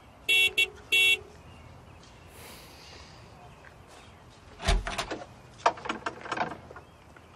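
Car horn tooted three times in quick succession: a short beep, a very short one, then another short beep. A few seconds later comes a spell of irregular knocks and rustles.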